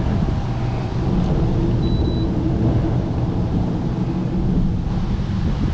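Rain falling with a steady low rumble underneath.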